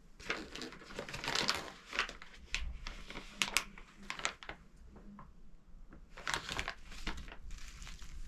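Plastic packaging crinkling and crackling as it is handled and opened by hand, in two spells of irregular crackles.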